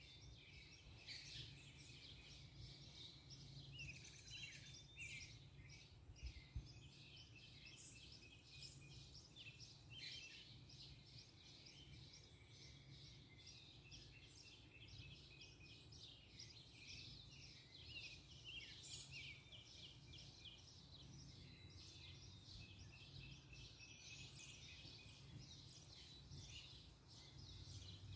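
Faint chorus of small birds chirping and twittering, many short overlapping calls throughout, over a faint steady low hum.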